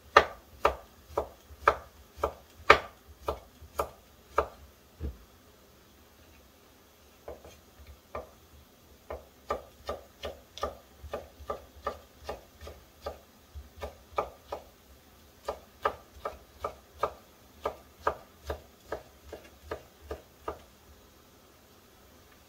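Kitchen knife slicing a cucumber on a wooden cutting board: a steady run of sharp knocks of the blade on the board, about two a second, pausing for a couple of seconds about five seconds in and stopping shortly before the end.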